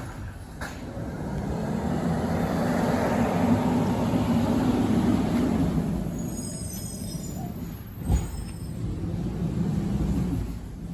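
Automated side-loader garbage truck's diesel engine revving up and easing back down over several seconds, then a brief high squeal, a single knock, and a second, smaller rev.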